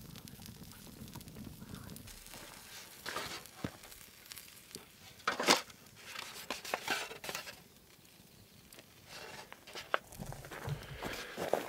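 Disposable aluminium foil tray crinkling and scraping as it is handled, in a few sharp bursts, the loudest about five and a half seconds in.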